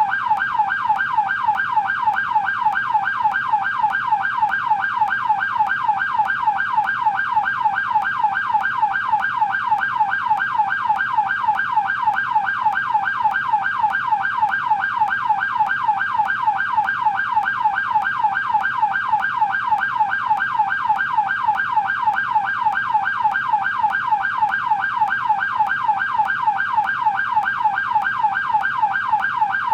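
American police siren in yelp mode: a steady electronic wail sweeping rapidly up and down in pitch, repeating evenly several times a second without a break.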